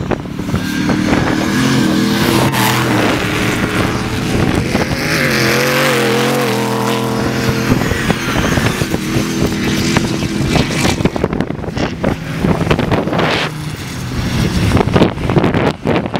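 Off-road race trucks' engines running hard as they pass on the sand course, the engine pitch rising and falling with the throttle. For the last few seconds the engines fade and wind buffets the microphone.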